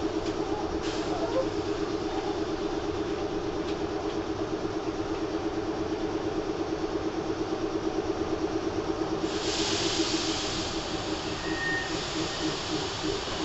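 Nagoya Municipal Subway N3000-series train standing at the platform before departure, heard from inside: its onboard equipment keeps up a rapidly pulsing drone. About nine seconds in there is a sudden burst of air hiss, which settles into a softer steady hiss.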